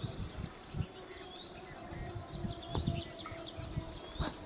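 Outdoor ambience over an open field: a bird repeats a short swooping call every second or two, with a brief rapid chirping trill near the end. A low, irregular rumble of wind buffets the microphone underneath.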